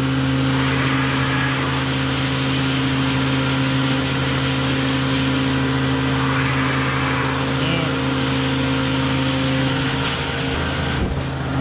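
CNC router running a cut: a steady machine noise with a constant multi-tone hum from the spindle and drive, with the cutting depth set wrong.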